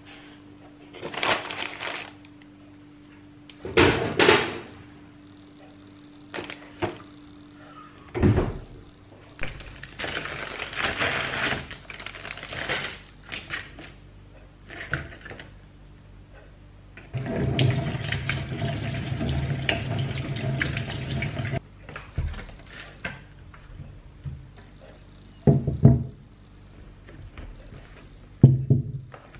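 Kitchen work sounds: a tap running into a sink for a few seconds around the middle, with scattered knocks and clatter of utensils before and after.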